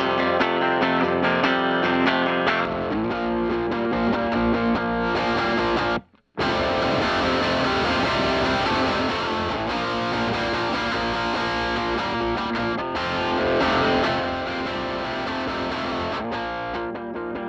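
Distorted electric guitar played through a Donner pedal into a Fender Bassman 59 amp, strummed chords and riffs ringing out. About six seconds in the playing cuts out abruptly for a moment, then comes back brighter and more saturated.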